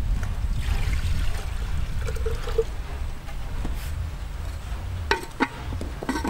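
Liquid trickling as it is poured from a clay jug into a clay pot, over a steady low rumble, then a few sharp clicks of the clay lid being set on the pot near the end.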